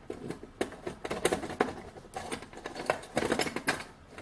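Quick, irregular clicks and rattles of small hard objects as a plastic floppy disk storage box is handled and opened.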